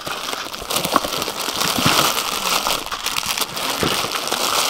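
Plastic instant-noodle packets crinkling and rustling as hands rummage through a box full of them and pick packets out.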